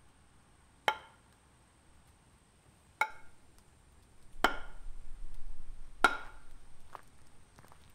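Rocks striking with sharp, ringing clacks: four hard hits spaced one to two seconds apart and a fainter knock near the end. The third hit is followed by about a second and a half of scraping rumble, like a rock skidding.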